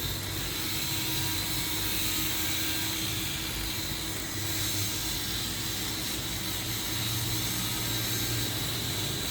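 Steady machine-like noise with a low hum and hiss, unchanging throughout.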